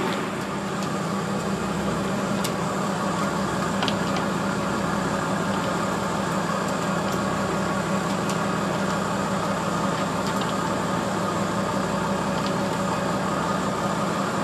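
A fishing boat's engine running steadily, a constant low hum with a few faint clicks over it.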